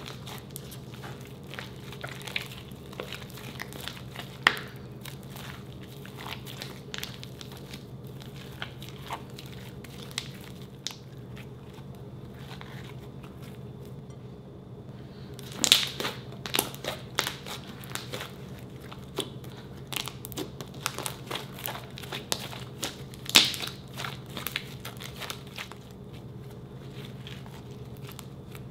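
Thick glossy slime being pressed, folded and poked by hand, giving scattered small sticky clicks and crackles. The clicks fall quiet for a few seconds mid-way and then come thick and fast for several seconds. A low steady hum runs underneath.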